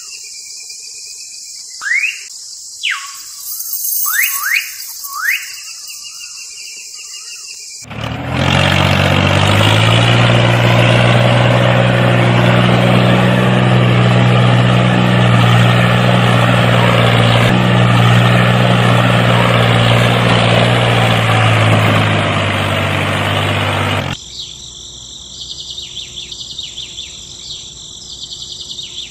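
A few quick rising chirps over a soft hiss, then a tractor engine running steadily and loud for about sixteen seconds before it cuts away to a quieter background.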